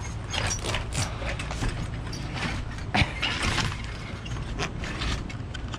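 Clicks, knocks and rattles of a motorhome's manual roll-out awning being pulled open by hand, its metal arms and rod clattering, with one sharper knock about halfway through over a low rumble.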